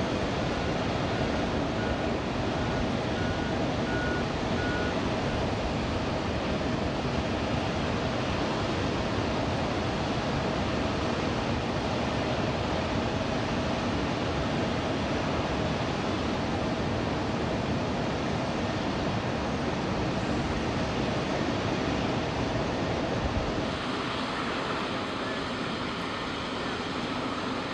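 C-17 Globemaster III's turbofan engines running on the ground: a steady rush with a steady whine through it. About three-quarters of the way in the sound changes, a little quieter and thinner, with higher whines.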